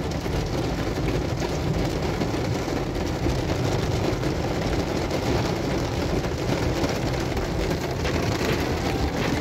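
Heavy rain falling steadily on a car's roof and windshield, heard from inside the cabin, with a low rumble of the car and traffic underneath.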